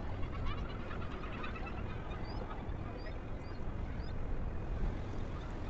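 Birds calling, several short rising calls from about two seconds in, over a steady low rumble.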